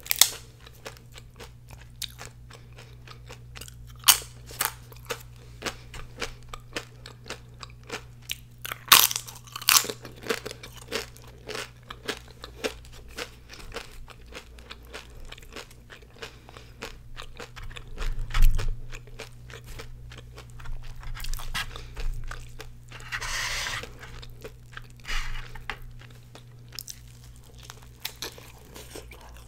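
Close-miked eating: crisp tortilla chips and a fried birria taco shell crunched between the teeth and chewed. Sharp crunches are scattered through, the loudest in the first ten seconds, over a faint steady low hum.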